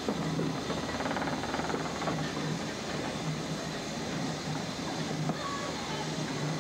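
A train of vintage wooden-bodied passenger coaches rolling slowly past, its wheels and running gear giving a steady rumble on the track.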